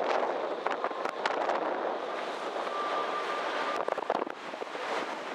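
Wind buffeting the microphone and the rushing of water from a sightseeing boat under way on a lake, with a faint steady tone briefly in the middle.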